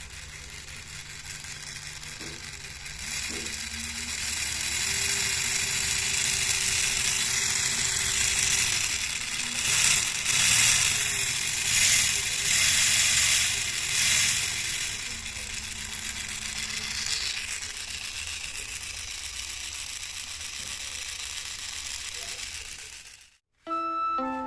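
Miniature two-cylinder engine model made from PVC pipe, running with a steady mechanical rattle and whir that grows louder and pulses for a while in the middle. It cuts off abruptly near the end, and music starts.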